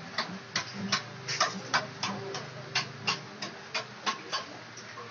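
Sharp taps or knocks repeating about three times a second, unevenly, over a faint low murmur.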